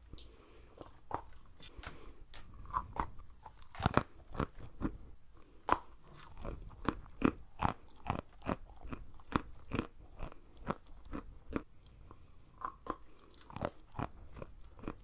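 Close-miked chewing of large chunks of soft, "sugary" white chalk: a continuous run of dull crunches, about two a second, as the mouthful is ground between the teeth.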